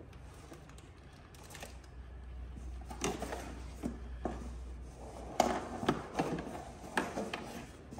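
Plastic parts of a ride-on toy truck clicking and knocking irregularly as they are handled and fitted during assembly, with a few sharper knocks in the second half.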